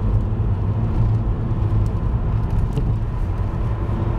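Steady road and engine rumble heard from inside the cabin of a moving car.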